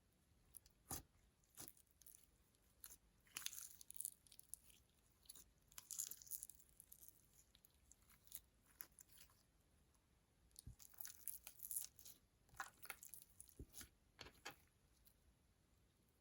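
Slime being worked by hand with makeup mixed in: faint, irregular crackles, clicks and crunchy pops, coming in clusters with short pauses between them.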